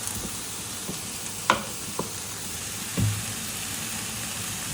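Saag (leafy greens) sizzling steadily as it fries in a pan, with a cooking utensil knocking against the pan a few times while it is stirred, the sharpest knock about a second and a half in.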